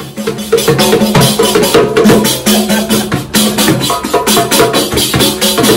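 Frame drum and jingle tambourine played together in a fast, steady rhythm, with dense drum strikes and jingles shaken between them.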